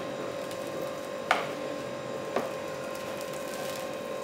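Hands squishing and rubbing spice marinade into raw chicken pieces in a plastic tub, with two sharp knocks about a second apart, over a steady background hum.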